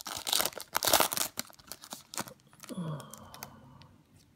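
Foil wrapper of a Panini Optic trading card pack crinkling and tearing as it is pulled open by hand. A short low hum comes about three seconds in, and then it goes quiet.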